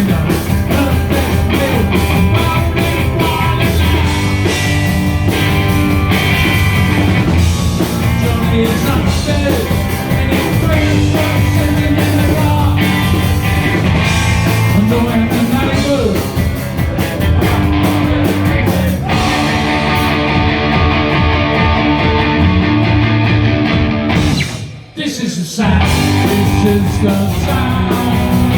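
Live punk rock band playing loud: electric guitar, bass and drums in an instrumental opening. The cymbals drop out about two-thirds of the way through, and the band briefly cuts out near the end before crashing back in.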